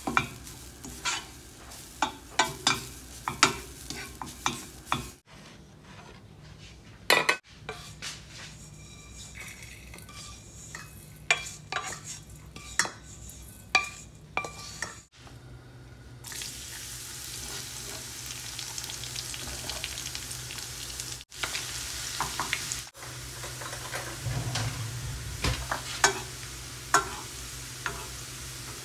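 Wooden spatula scraping and stirring grated coconut as it toasts in a dry frying pan, in a run of short separate strokes. From a little past halfway comes a steady sizzle of sliced garlic frying in oil, with a metal spoon now and then tapping the pan.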